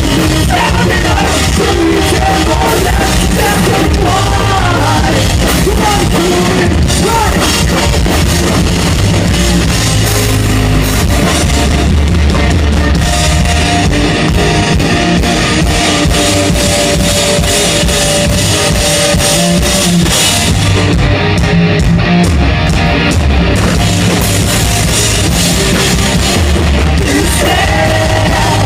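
Punk rock band playing live at full volume: pounding drum kit and electric guitars, with singing near the start and again near the end, and held notes in between.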